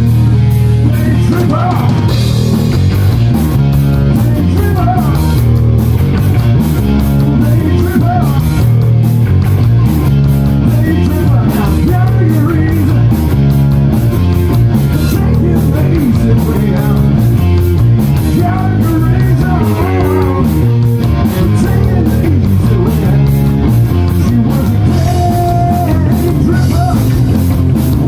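Loud rock music, punk-styled, with electric guitars, a drum kit keeping a steady beat, and singing.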